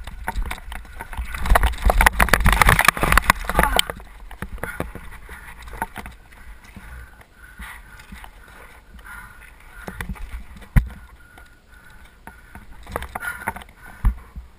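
Mountain bike clattering and rattling over a loose, rocky dirt trail, heard from a helmet-mounted camera with wind on the microphone. Loud for the first few seconds, then quieter rolling noise with a couple of sharp knocks near the end.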